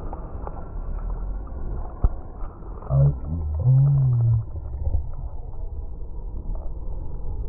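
Muffled, steady rumble of water and splashing on an inflatable waterslide. About three seconds in, a short muffled voice rises and falls for a second or so, the loudest thing heard.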